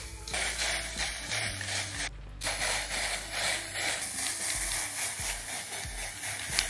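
Aerosol spray can hissing as black spray paint is sprayed onto a metal side table: one spray of about two seconds, a short break, then a longer steady spray.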